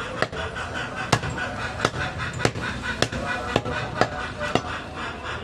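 Heavy butcher's cleaver chopping through goat ribs on a wooden log chopping block: a sharp chop roughly every half second to second, each hitting bone and wood.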